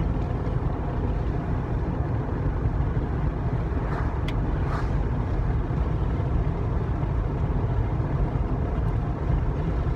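Steady low rumble of a car, heard from inside the cabin, with a faint click about four seconds in.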